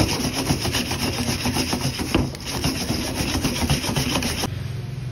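Dry crushed flakes crunching and scraping as a gloved hand presses and turns batter-coated spring rolls in them in a steel bowl; the crackly scraping stops abruptly about four and a half seconds in.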